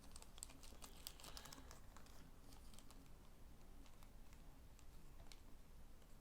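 Faint handling noise of a cardboard trading-card box and its foil card packs: a run of light clicks and crinkles, busiest in the first two seconds or so, then only a few scattered ticks.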